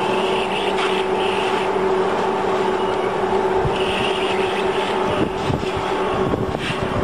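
Steel-wire scourer making machine running: a steady mechanical hum with a constant tone, and a few faint clicks.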